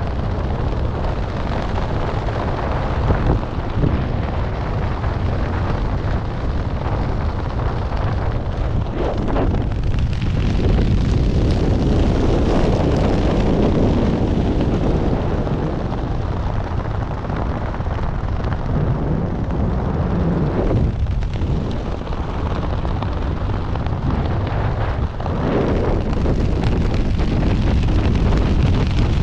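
Airflow buffeting the microphone of a helmet-mounted camera during parachute canopy flight: a continuous low rumble, getting louder about four seconds before the end.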